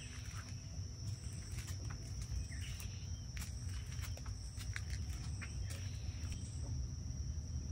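Outdoor ambience dominated by a steady, high-pitched insect trill, with a low rumble underneath and a few faint chirps.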